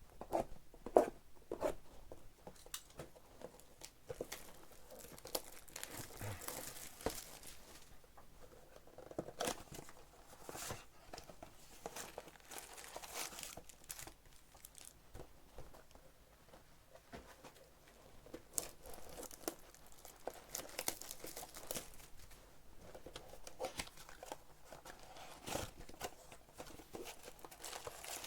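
Styrofoam packing peanuts and a cardboard shipping box being handled: irregular rustling, crinkling and tearing as hands dig through the box, with scattered sharp knocks and clicks, the loudest about a second in.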